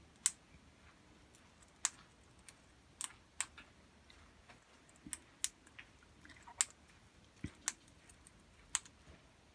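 Australian king parrot cracking and husking seeds with its beak: faint, sharp, irregular clicks, a couple each second.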